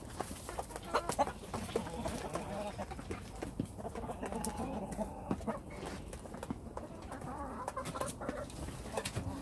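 Several hens clucking steadily, with scattered short sharp taps from beaks pecking at feed in a basin.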